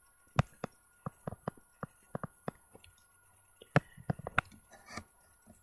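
A stylus tapping and clicking on a tablet while writing by hand: irregular light clicks, with a quick run of them about four seconds in.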